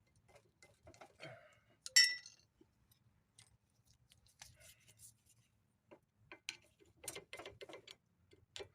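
Light metallic clicks and taps from metal parts and tools being handled during a rear brake pad job, with one loud ringing clink about two seconds in and a quicker run of clicks near the end.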